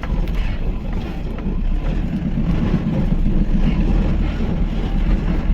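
Mahindra pickup truck's engine running steadily as it drives, a dense low rumble that grows a little louder toward the end.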